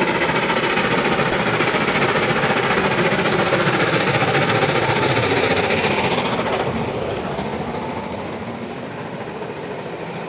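LMS Stanier 8F 2-8-0 steam locomotive working hard as it passes close by, its exhaust beating rapidly. About six and a half seconds in, the engine is past and the sound drops to the lower rumble of the coaches rolling behind it.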